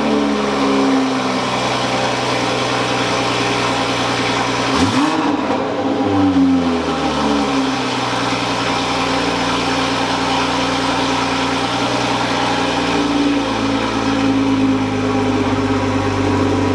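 Toyota Supra engine idling just after its first start with a catless downpipe fitted, so the exhaust runs without a catalytic converter. The idle is briefly revved about five seconds in, then settles into a steady idle.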